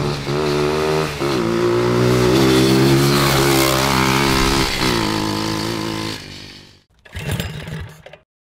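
Small single-cylinder pit-bike engine of an off-road go-kart revving as it drives. It rises and drops in pitch several times, runs high and steady through the middle, then fades away. A brief noisy burst follows near the end.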